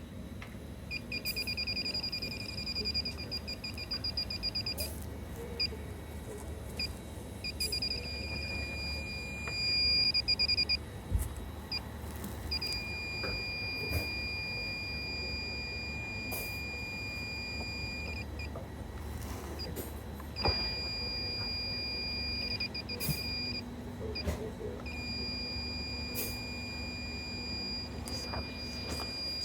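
Electronic refrigerant leak detector beeping in a high tone. Five times over, it beeps in quick pulses that run together into a steady held tone, then stops, as happens when refrigerant reaches its sensor at a leak on the evaporator. A low steady hum runs underneath.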